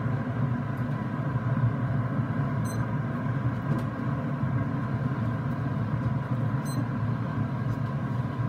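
Steady hum of a Rec Tec pellet grill's fan running, with a faint high tick twice.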